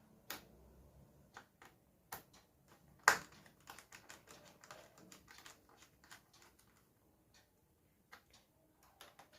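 Scattered small clicks and taps of a laptop heat sink being set back over the CPU and fastened, with metal parts and tools knocking against the chassis. The loudest click comes about three seconds in.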